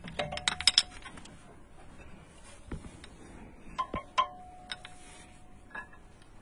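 Metal clicks and clinks as a brake pad's steel backing plate is worked into the rear caliper carrier and its retaining clips: a quick run of sharp clicks near the start, another around four seconds in, and a few single clicks, some leaving a brief ring.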